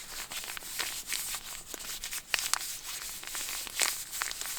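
Plastic wrapper of a disposable heating pad being torn open and crinkled, with the packet handled and squeezed to activate it: a continuous crackling rustle of many small sharp crinkles.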